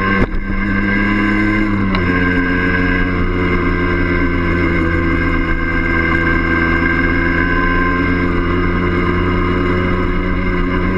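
Yamaha DT50M's small two-stroke single-cylinder engine running steadily under way, heard from the bike itself. About a quarter second in there is a click and a brief drop, and the engine note runs a little higher before settling back to a steady pitch about two seconds in.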